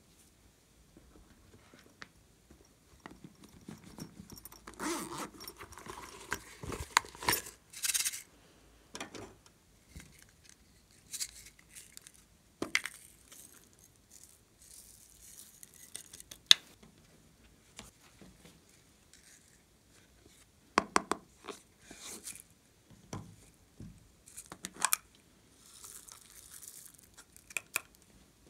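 Small plastic containers of sequins and glitter handled and shaken over a glass dish of slime, with sharp plastic clicks and short spells of rattling and pattering as the pieces fall. The rattling is busiest about five to eight seconds in.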